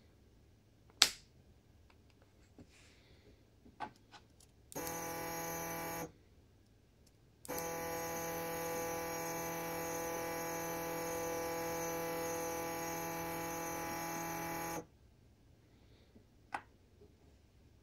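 A stepper motor driven by a stepper driver board whines at one steady pitch with many overtones, briefly for about a second and then for about seven seconds, stopping abruptly each time: the motor is stepping the finger-joint jig to a new set position. A sharp click about a second in and another near the end come from a lever microswitch being pressed.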